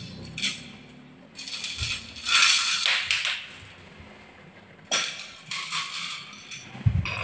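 Marbles rattling and clattering down a wooden marble-run track, in two bursts of a second or two each, the second starting about five seconds in.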